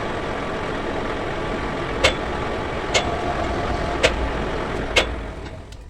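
Metal lathe running with a steady noise and a sharp metallic click about once a second; the noise fades away near the end.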